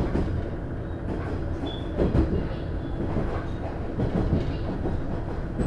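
Running sound inside a KiHa 110 diesel railcar (DMF14HZA engine): a steady low rumble from wheels and engine, with the wheels knocking over rail joints about two seconds in and again around four seconds, as the car nears a station stop.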